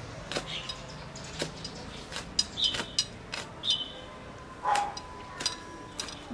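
Chinese cleaver chopping red chillies on a thick wooden chopping board: sharp, uneven knocks, a few a second.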